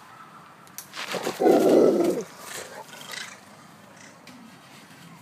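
A Rottweiler giving one loud, deep, drawn-out bark up into the trees at monkeys about a second and a half in, with a few faint clicks around it.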